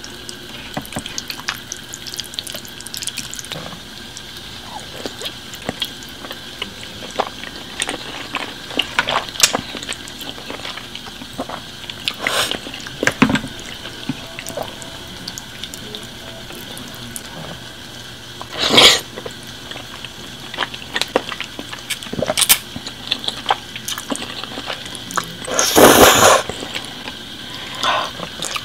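Close-miked mukbang eating sounds: wet chewing and mouth smacking over big mouthfuls of spaghetti, with many small clicks and a few louder slurps, the longest near the end.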